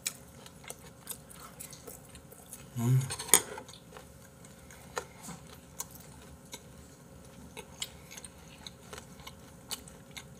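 Eating sounds: chewing, with scattered small clicks of chopsticks against plates. About three seconds in comes a brief low hum, followed by a sharp click that is the loudest sound.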